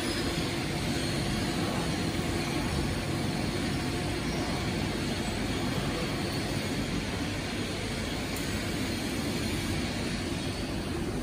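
Steady low drone of factory machinery running, with no breaks or changes in level.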